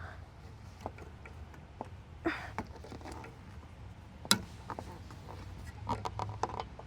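Scattered light clicks and taps of hands working car parts and fasteners. There is a sharper knock about four seconds in and a quick run of clicks near the end.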